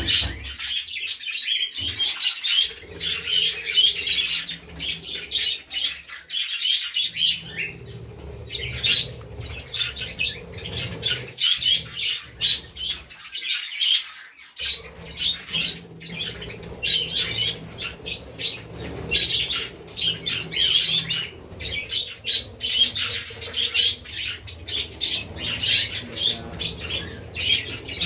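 A flock of budgerigars chattering and warbling together: a dense, continuous stream of quick high chirps and squawks.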